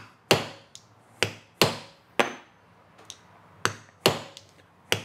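Mallet striking a leatherworking tool held upright on leather suspenders: about seven sharp knocks at an uneven pace, two of them fainter.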